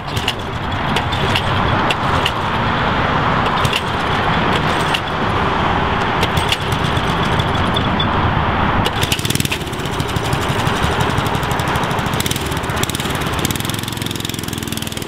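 Minibike's small engine running steadily.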